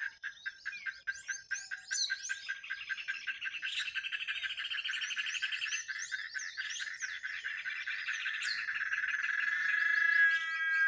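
Dawn chorus of many birds calling together from one tree: dense overlapping chirps, short whistled glides and fast repeated trills, with a steadier high note growing louder near the end.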